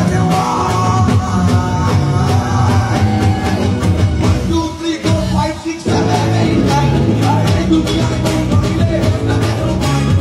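Live band music played loud through a PA, with electric bass and singing over it. The band thins out briefly about halfway through, then comes back in full.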